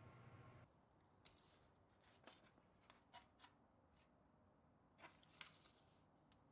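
Faint rustling and light crackles of a sheet of 1500-grit waterproof sandpaper being handled with gloved hands and laid flat on a countertop. A low steady hum cuts off abruptly within the first second.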